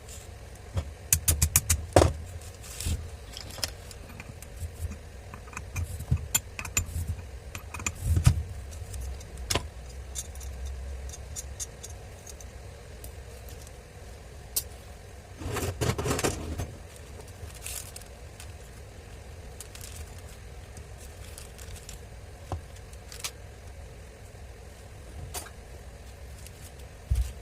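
Metal tool and grinder parts clicking and clattering as they are handled, in irregular bursts, with a scraping patch of about a second partway through and a knock near the end.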